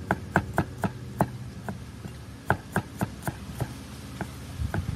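Cleaver chopping garlic cloves on a wooden chopping block: a run of sharp, irregular knocks, a brief pause a little past a second in, then more knocks.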